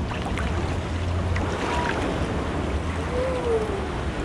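Lazy-river water flowing and lapping around floating inner tubes: a steady rushing of water with a low rumble underneath.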